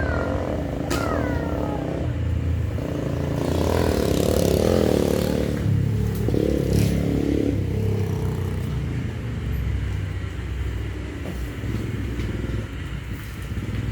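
An engine running steadily with a low hum, swelling louder about four seconds in and easing off again after about seven seconds.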